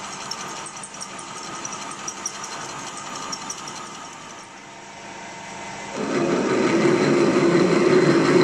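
Metal-turning lathe running while a twist drill in the tailstock chuck bores through a spinning metal gear blank. About six seconds in the cutting noise suddenly gets louder and rougher.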